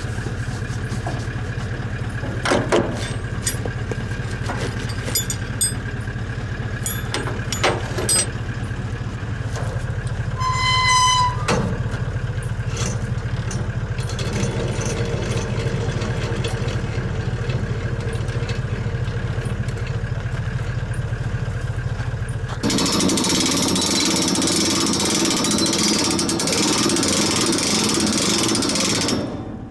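A vehicle engine idling steadily, with a few metal clanks and knocks and a short electronic beep about eleven seconds in. About three-quarters of the way through, the idle gives way to a louder, even rushing noise that lasts about seven seconds and then cuts off.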